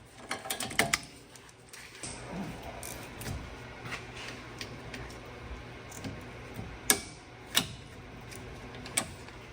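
Hand tools clicking and clinking against metal parts during brake work: a quick run of clicks at the start, then a few sharp single clinks spaced seconds apart, over a low steady hum.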